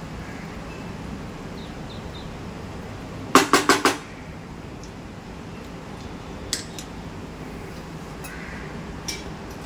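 Red spatula stirring cooked rice in a pan and knocked against the pan: a quick run of about five sharp knocks about three and a half seconds in, then two single clicks later, over a steady low hum.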